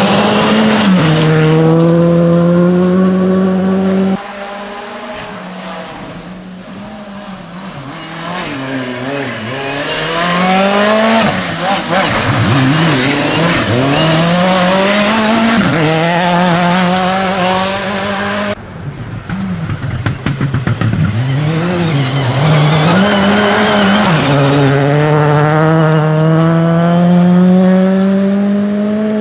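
R5-class rally cars, a Škoda Fabia R5 and a Hyundai i20 R5, at full attack on a gravel stage: engines revving hard, the pitch climbing and dropping through gear changes and lifts as each car passes. The sound changes abruptly twice, at about four and eighteen seconds, where one car's pass is followed by the next.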